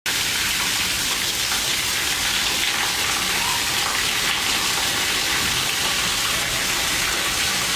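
Steady rain falling, an even hiss with no break or change.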